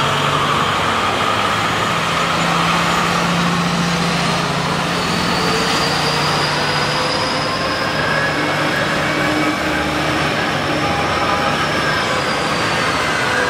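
BelAZ 75601 ultra-class diesel-electric haul truck driving past, its big diesel engine running as a steady, heavy drone. A thin high whine rises over it from about five seconds in and fades near the end.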